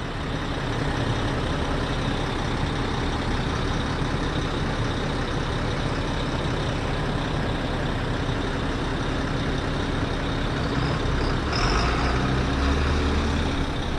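Farm tractor engine running steadily under way. A deeper low rumble joins about eleven and a half seconds in.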